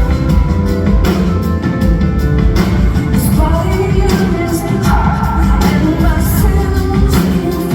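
Live rock music from a full band, with drums hitting steadily under a woman's singing voice.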